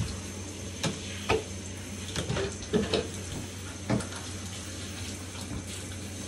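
Faucet water running steadily into a sink while a dog is bathed, with several brief knocks and splashes in the first four seconds.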